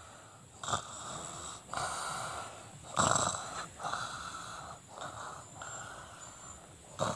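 A woman making a series of rough, breathy noises with her open mouth pressed against a tree trunk, the loudest about three seconds in.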